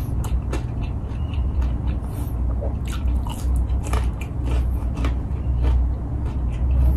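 A person biting and chewing a piece of fried meat coated in chili sambal: a run of irregular sharp crunches over a steady low hum.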